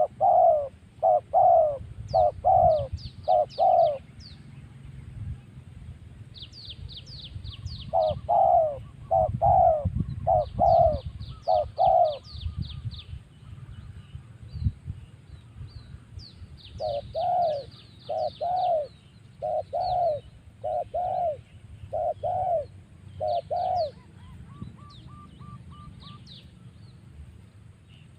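Zebra dove (perkutut) singing: three phrases of six to eight quick, rolling coos each, with pauses of a few seconds between them. Small birds chirp faintly in high, rapid series around them.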